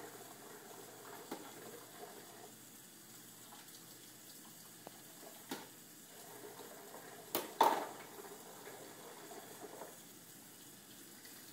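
Kitchen faucet running a thin stream into a sink of soapy water, with light splashing as plastic dishes are handled. A few sharp knocks of the dishes against the sink, the loudest pair about two-thirds of the way through.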